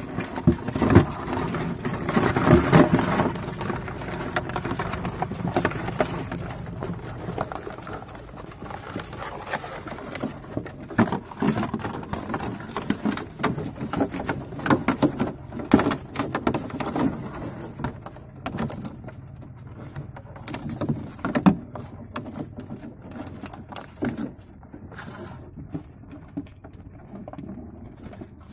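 Live crabs scrabbling on hard surfaces, their legs and claws clicking and scraping, mixed with knocks of a stick pressed down to pin a crab for tying. Irregular clicks and scrapes, busiest and loudest in the first few seconds, then sparser.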